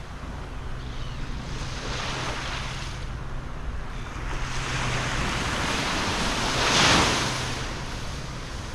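Waves washing in on the shore, swelling and ebbing, with the loudest wash about seven seconds in, and wind buffeting the microphone.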